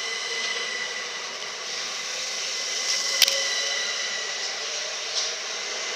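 Class 377 Electrostar electric multiple unit pulling out of the platform past the camera: a steady rush with a steady high whine from its traction equipment. A single sharp click about three seconds in.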